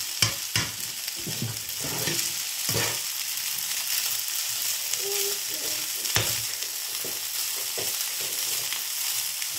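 Fusilli pasta with tuna sizzling in a hot frying pan while a spatula stirs and scrapes it. A steady high sizzle runs under irregular knocks and scrapes of the spatula against the pan, one sharper knock about six seconds in.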